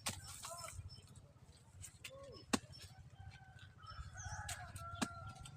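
Birds chirping in short calls, with two sharp snaps, about two and a half seconds apart, over a steady low hum.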